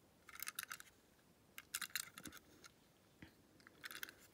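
Faint clicks and crinkles of a small plastic toy car and its packaging being handled, in three short clusters: about half a second in, around two seconds in, and near the end.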